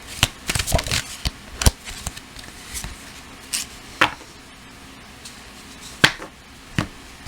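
Tarot cards being handled and shuffled: a quick run of sharp card slaps and clicks in the first two seconds, then single snaps about four, six and seven seconds in.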